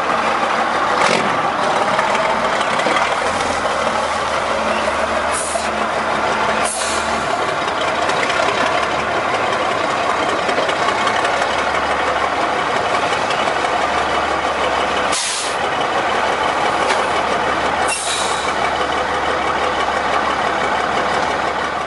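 Heavy 1952 Mack LM truck engine idling steadily, with five brief sharp hisses.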